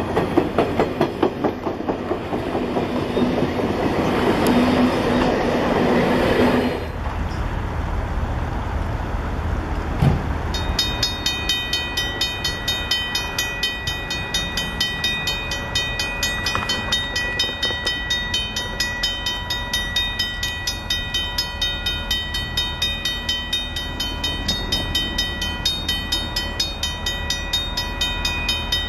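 CNJ 113, an Alco-built 0-6-0 steam locomotive, running with its train, making a steady rhythmic beat over a low rumble. The sound is louder and harsher for the first seven seconds, then changes abruptly. A single knock comes about ten seconds in.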